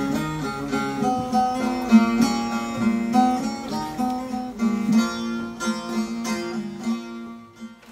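Instrumental music on a plucked string instrument: a melody of separately picked notes that fades out near the end.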